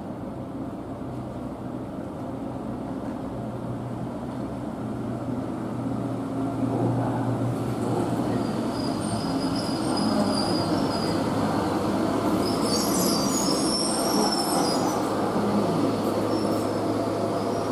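Electric commuter train rolling slowly through station points: a steady low hum and wheel rumble that grow louder about six seconds in. High-pitched wheel squeal from the curving turnout comes in about eight seconds in and stops about seven seconds later.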